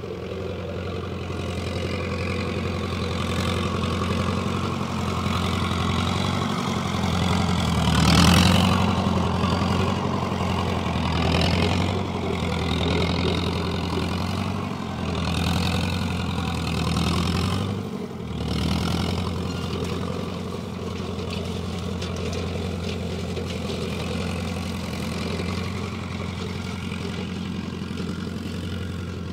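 Farm tractor's Perkins diesel engine running. It revs up to its loudest about eight seconds in, rises and falls a few more times, then settles to a steadier, slightly lower run from about twenty seconds in.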